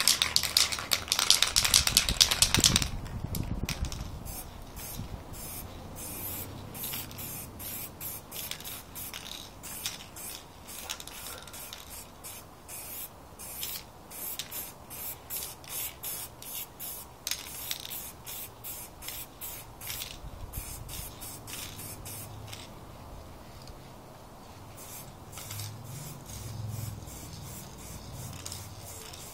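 Aerosol can of black spray paint shaken hard for the first few seconds, its mixing ball rattling, then sprayed in many short hissing bursts, with a short pause about two thirds through.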